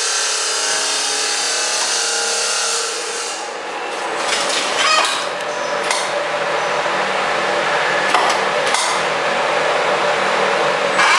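Automatic wall-plastering machine running: a steady mechanical whine and hiss, with a few metallic knocks and scrapes about four, six and eight seconds in.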